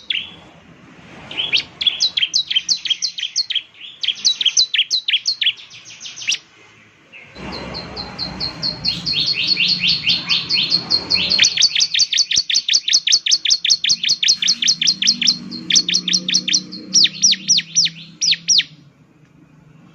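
Bar-winged prinia (ciblek) singing: quick bursts of sharp, high down-slurred chirps, then a long rapid trill over a steady high note from about a third of the way in, stopping shortly before the end.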